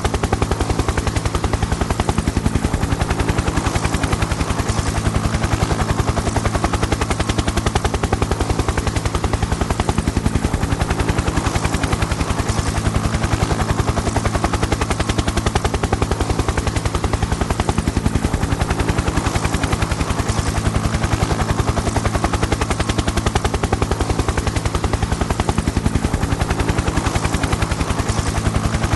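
Helicopter in flight: a rapid, steady chop of the rotor blades over a constant low drone, with no change in distance or pitch.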